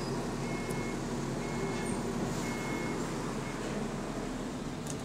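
Steady running noise of a bus heard from inside the passenger saloon: a low engine and drivetrain rumble with a constant noise over it. A faint short high beep sounds about once a second for the first three seconds, then stops.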